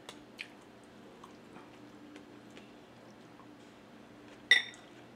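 Quiet eating sounds from a person having salmon sinigang soup: a few soft mouth clicks while chewing, then a short, loud sip of soup from a spoon about four and a half seconds in.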